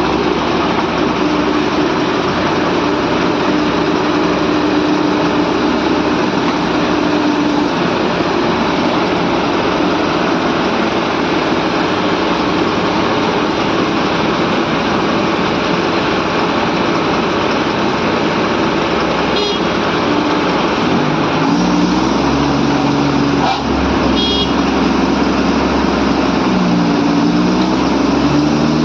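Diesel engine of an ACE AX-124 backhoe loader running steadily, its engine speed dipping and rising a few times in the last several seconds.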